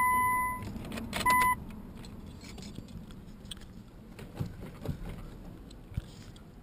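Two electronic beeps at one steady pitch: a long beep of almost a second, then a short one about a second later. A few faint clicks follow.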